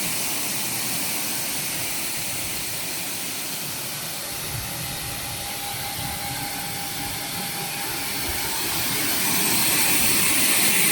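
Apple air bubble washing machine running: a steady hissing rush of air-churned water from the bubble tank, getting louder over the last couple of seconds.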